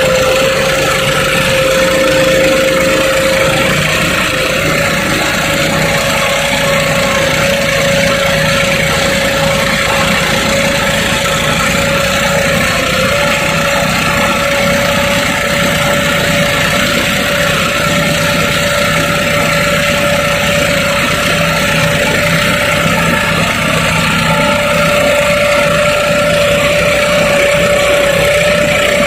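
Tractor engine sound running steadily, a constant drone with one strong whine that edges slightly higher in pitch over the course of the sound.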